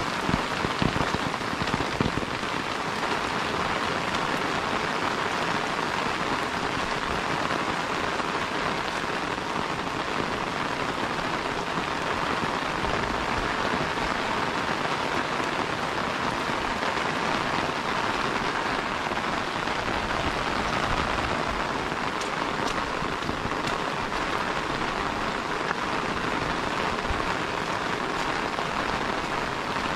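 Steady rain falling and pattering on an umbrella held overhead, an even hiss with a few louder knocks in the first couple of seconds.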